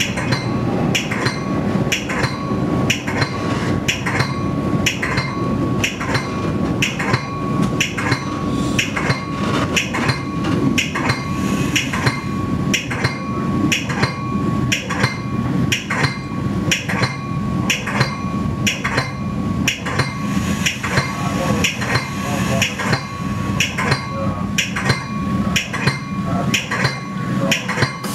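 Train's warning bell ringing steadily, an even run of metallic strikes about one and a half a second, over the low rumble of the moving commuter train.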